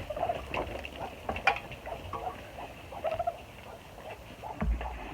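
Piglets giving short faint squeaks and grunts, with scattered shuffling and knocks from movement in the pen.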